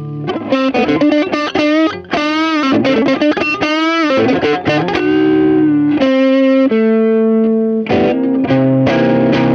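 Squier Stratocaster electric guitar played overdriven through Kokko overdrive, Kokko compressor and Eno auto wah pedals into a Peavey BackStage Plus amp. A run of quick picked notes with bent pitches gives way, about halfway through, to held notes and chords left ringing.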